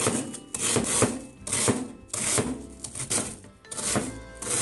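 Kitchen knife crunching through an Umaibō puffed corn snack stick onto a plastic cutting board, a crisp stroke every half second to second. Background music plays underneath.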